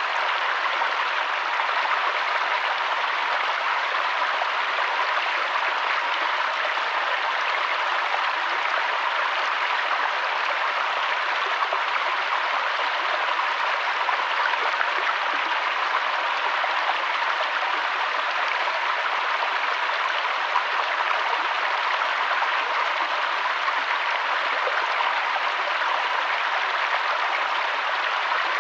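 Mountain waterfall and stream: water rushing steadily and evenly.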